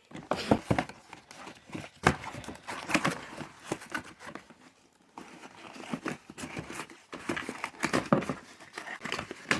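Packaging being unwrapped: irregular crinkling and rustling with small clicks and knocks, pausing briefly about halfway through.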